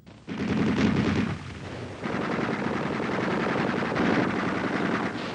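Rapid gunfire, many shots in quick succession over a low rumble, starting about a third of a second in and going on without a break.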